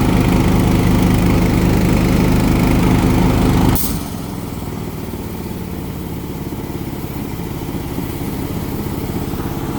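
A small engine running steadily. About four seconds in there is a sharp click and the sound drops abruptly to a quieter, steady engine hum.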